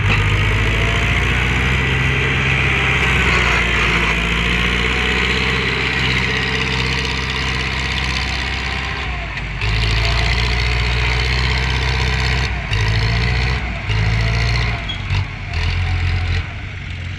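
Heavy diesel engine of a tractor or backhoe running loud and steady, then easing off briefly about nine seconds in and surging and dropping several times near the end as the load or throttle changes.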